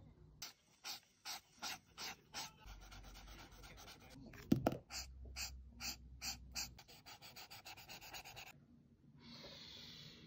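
Marker strokes scratching on paper in a quick back-and-forth rhythm while colouring in, with a single knock about halfway.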